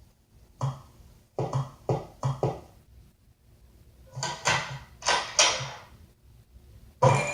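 Cartoon sound effects: a quick run of short thumps, then two longer noisy swishes a few seconds in, and a sharp loud hit near the end.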